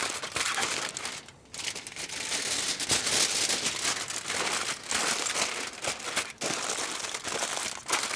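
Thick aluminium foil crinkling and crackling as it is folded and pressed tightly around a rack of ribs, with a brief lull about a second in.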